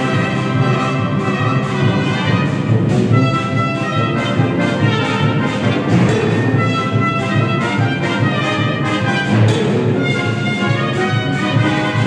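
A brass quintet and a full symphony orchestra with strings, harp and percussion playing a lively film-music arrangement together, the brass to the fore with many short, detached notes.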